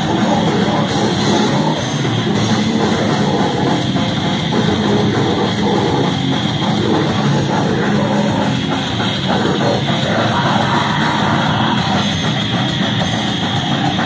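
Heavy metal band playing live: distorted electric guitars, bass guitar and drum kit, loud, dense and unbroken, with little deep bass.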